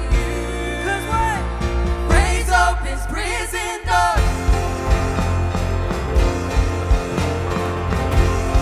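Live worship band playing: voices sing a melody over bass and keyboards for about four seconds, then after a brief break the band plays on with drums and bass.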